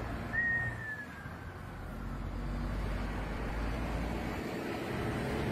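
Steady road and traffic noise of a vehicle driving along a highway, with a thin tone about half a second in that slides slowly downward.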